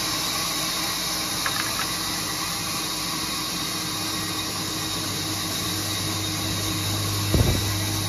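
Sawmill machinery running with a steady mechanical hum. The low hum grows stronger about six seconds in, and there is a short thump near the end.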